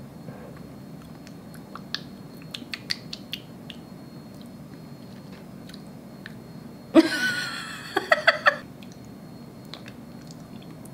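A person tasting a spoonful of thick yogurt: quiet mouth clicks and lip smacks while chewing, then about seven seconds in a louder wordless vocal sound with a wavering pitch, lasting about a second and a half.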